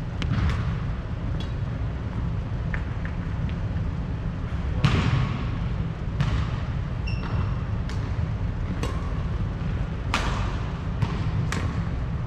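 Badminton rally in an echoing sports hall: sharp racket strikes on the shuttlecock about once a second, the loudest about five seconds in, with a brief shoe squeak on the court floor about seven seconds in. A steady low rumble runs underneath.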